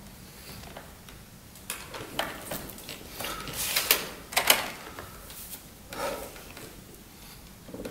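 Scattered clicks and soft knocks from a piano accordion being handled, with no tune played: keys, register switches and the strap and bellows fittings rattling as it is settled into place. The loudest knocks come a little under four and four and a half seconds in.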